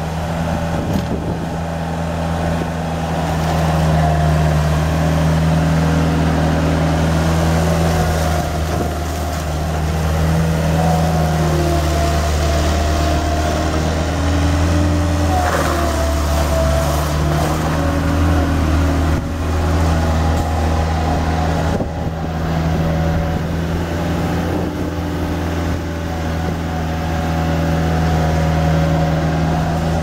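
Bobcat 751 skid steer's Peugeot four-cylinder diesel engine running steadily while the machine drives and turns, with a fainter higher whine wavering in pitch over the engine note.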